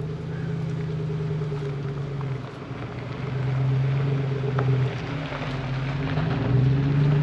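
An engine running, its pitch stepping up and down between two speeds.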